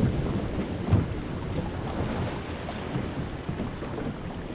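Choppy sea slapping and lapping against a small boat's hull, with wind rumbling on the microphone, and a thump about a second in.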